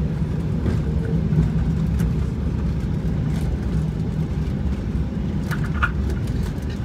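Steady low rumble inside the cabin of a Jeju Air Boeing 737 rolling out on the runway after touchdown: wheels on the runway, with a low steady hum running under it.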